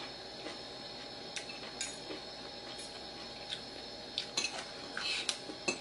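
A metal spoon and fork tapping and scraping against a ceramic bowl while eating: scattered light clicks, more frequent in the last couple of seconds.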